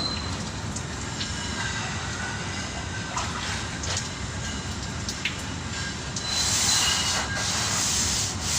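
Sandpaper on a sanding block rubbed by hand over body filler, 120 grit, giving a scratchy rasping hiss over a steady low rumble. The hiss grows louder from about six seconds in.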